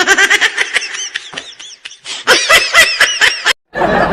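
High-pitched laughter in quick squeaky pulses, each rising and falling in pitch, in two runs with a short break between them. A harsh noisy burst follows near the end.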